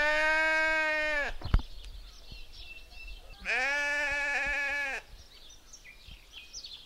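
Sheep bleating twice: two long, steady calls, each about a second and a half long, dropping in pitch as they end, with a single sharp click between them.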